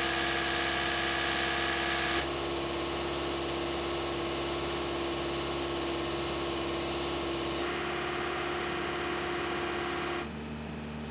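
Hyundai GDi four-cylinder engine running steadily at idle while STP direct-injection cleaner is drawn into its intake, a steady hum with a fixed tone. The sound shifts slightly about two seconds in and drops a little quieter near the end.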